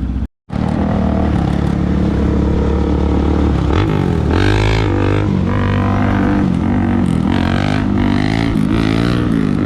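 Dirt bike engine under way, its pitch rising and falling again and again with the throttle and gear changes.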